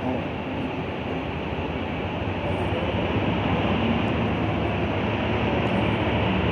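Passenger train hauled by a Wabtec diesel-electric locomotive, running with a steady rumble and rail noise that grows gradually louder.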